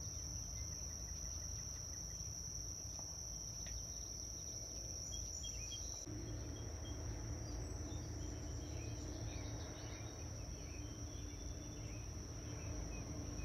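Insects trilling in one steady high tone, with faint scattered bird chirps over quiet outdoor background.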